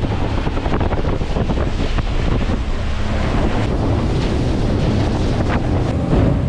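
Wind buffeting the microphone and water washing against a small boat, with the boat's Honda outboard motor running low and steady underneath.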